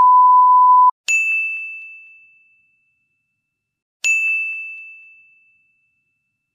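The steady test-tone beep of TV colour bars, cutting off about a second in. Then two bright bell dings about three seconds apart, each ringing out and fading over a second and a half.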